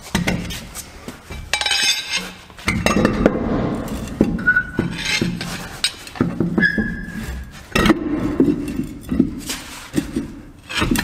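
Heavy steel truck wheel being worked onto the hub and studs as the outer wheel of a dual rear pair: a run of irregular metallic clinks and knocks, with a couple of brief metallic rings.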